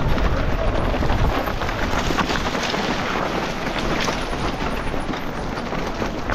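Mountain bike descending fast over rough ground: a steady rumble of wind buffeting the rider's camera microphone, under a constant clatter and rattle of tyres, chain and frame.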